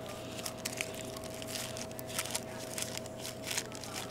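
Crumpled paper and bills crinkling and rustling as fingers dig through a wallet, a string of short irregular crackles over a steady hum.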